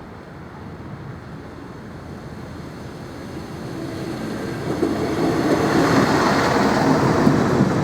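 Electric S-Bahn train approaching, its running noise growing steadily louder for about five seconds and then staying loud, with a faint high whine above it.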